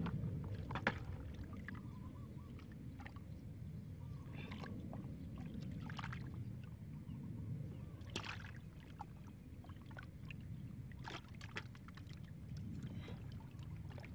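Hands groping and scooping in a small hole of muddy water, with scattered wet splashes and squelches over a low steady rumble.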